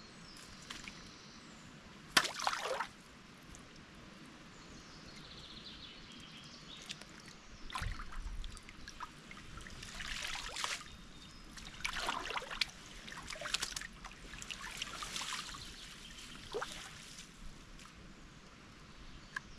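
Water trickling and sloshing in irregular spurts, with a sharp click about two seconds in.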